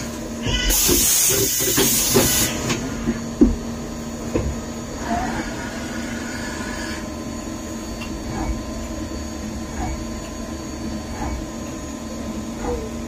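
Mazak Integrex 200 SY CNC turning center running: a steady machine hum, with a loud burst of hissing about a second in that lasts under two seconds. A softer hiss follows mid-way, then faint short squeaks about every second and a half.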